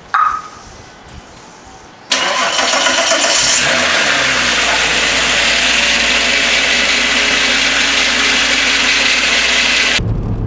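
A brief sharp sound just after the start. Then about two seconds in, a VR6 car engine starts abruptly, its revs shifting for a couple of seconds before it settles into a steady idle.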